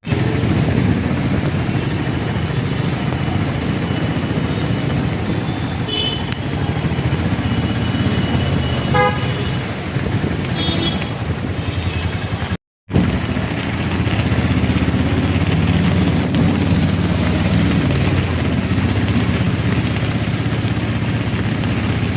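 City road traffic: motorbike and car engines running under a steady noise, with a few short horn toots in the first half.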